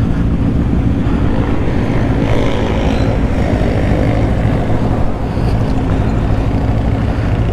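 Honda Rebel 500's parallel-twin engine running steadily.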